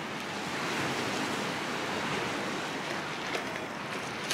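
Small sea waves breaking and washing in at the water's edge: a steady rushing wash.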